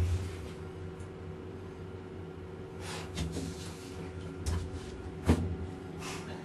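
Lift running with a steady low hum, with a few short knocks and clicks over it; the sharpest knock comes about five seconds in.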